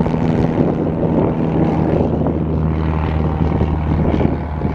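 Piper PA-28 Archer TX's four-cylinder Lycoming O-360 engine and propeller running at takeoff power as the plane accelerates down the runway on a touch-and-go. It is a steady drone that grows stronger about two seconds in.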